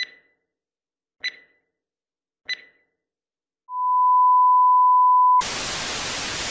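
Electronic beep sequence: three short high beeps about a second and a quarter apart, then a longer, louder and lower steady tone, followed by a burst of static hiss that cuts off suddenly.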